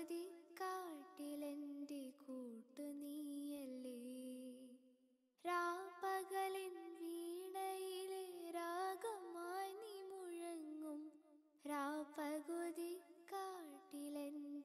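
Background music: a high solo singing voice holds long, ornamented notes that slide between pitches, over light accompaniment. It dies away about five seconds in and comes back a moment later.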